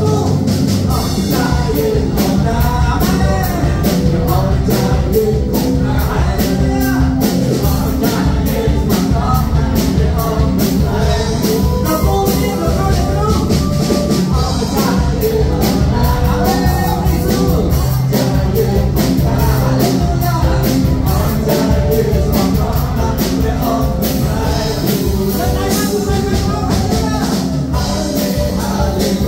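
Upbeat praise and worship music with a steady beat and singing.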